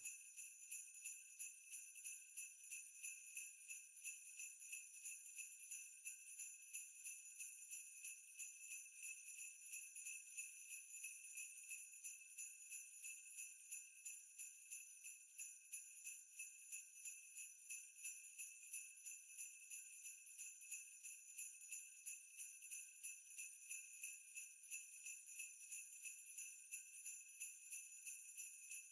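Sleigh bells jingling faintly in a steady, even rhythm of about two to three shakes a second.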